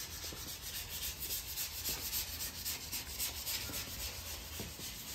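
Hand sanding block being worked back and forth over a truck hood during bodywork, an even run of rasping strokes with sandpaper on the panel.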